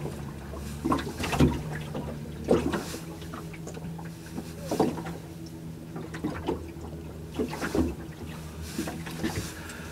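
Water slapping and lapping against the hull of a small boat in short irregular splashes, over a steady low hum.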